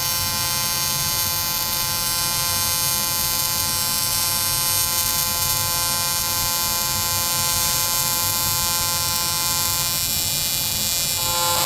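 AC TIG welding arc on aluminum, set to 180 Hz AC frequency, buzzing steadily as a bead is run along an outside corner joint. The aluminum is unprepped and rain-soaked, yet the arc holds steady.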